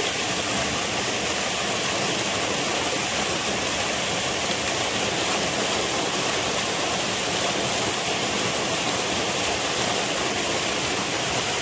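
Steady rush of flowing water, an even hiss without breaks.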